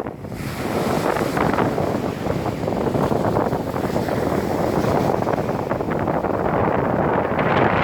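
Wind buffeting the microphone at the seaside: a loud, steady, rough noise.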